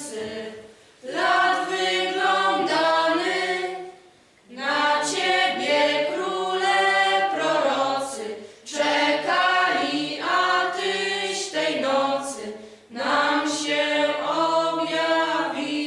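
A choir singing a Christmas carol, in phrases of about four seconds with short breaks between them.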